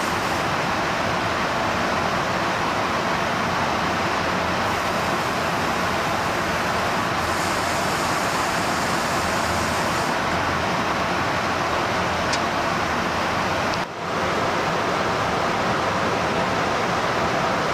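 Steady rushing roar of aircraft in flight, air and jet-engine noise, heard from a tanker during aerial refuelling of an F-22 Raptor. There is a brief dip about 14 seconds in.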